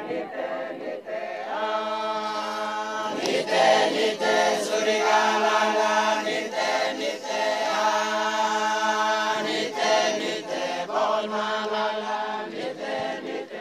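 A group of men singing a hymn of praise a cappella in a regional language, several voices together in sustained, chant-like harmony.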